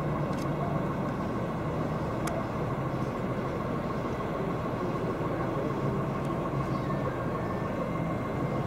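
Steady street noise with a motor vehicle engine idling.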